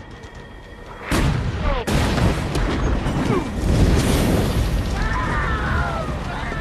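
Heavy naval gunfire and shell explosions at close range: a sudden blast about a second in, a second sharp blast under a second later, then a long rumble that lasts several seconds.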